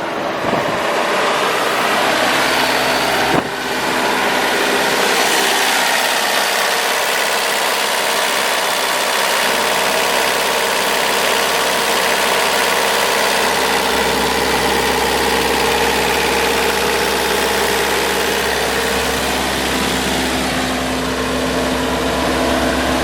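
Bobcat T190 skid steer's diesel engine running steadily, with a single sharp knock a few seconds in.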